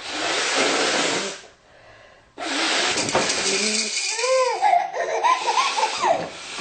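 A woman blowing her nose hard twice, a short blow and then a longer one from about two and a half seconds in, with a baby laughing during the second blow.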